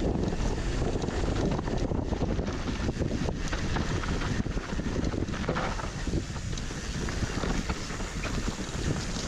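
Mountain bike rolling fast down a dirt downhill trail, wind rushing over the action camera's microphone, with the tyres crunching over dirt and frequent short knocks and rattles from the bike over rough ground.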